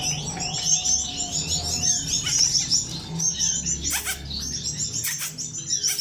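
Many caged finches chirping together in a breeding room: a dense, continuous chorus of short, high chirps, with a low steady hum underneath.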